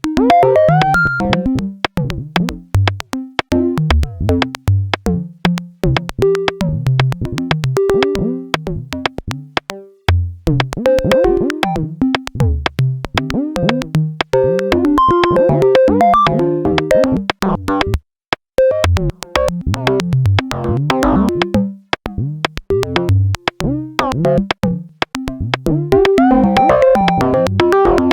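VCV Rack software modular synthesizer patch playing a busy stream of quantized synth notes that jump about in pitch, over fast clicking percussion. The notes come from the Quad Deviant module's four outputs, which also shift the rhythm, timbre and mix. The sound briefly cuts out about eighteen seconds in.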